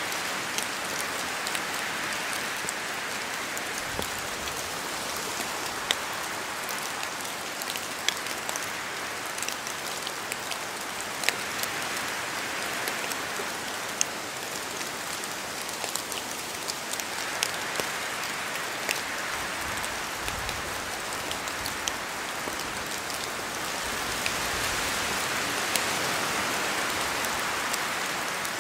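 Steady rain in a forest, with large drops from the trees landing as sharp single taps scattered throughout. The wash of sound swells and eases several times as wind moves through the trees.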